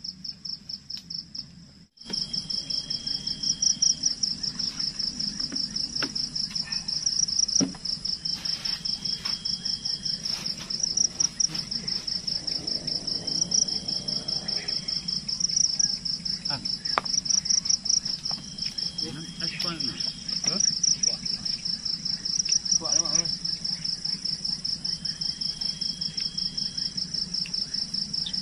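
Night insects, crickets among them, chirring in a loud, fast pulsing trill that jumps louder about two seconds in. A shorter steady insect tone comes back every few seconds.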